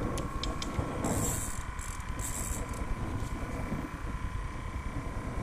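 A small Zebco Micro 33 reel being cranked while a hooked crappie is fought in. Faint clicks and two brief hissing zips sound over a steady low rumble.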